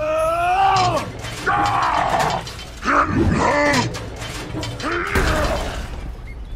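A high, voice-like cry that rises and falls in pitch, heard four or five times in short bursts, with a clatter of small toy bricks. Underneath runs a low, pulsing music bed.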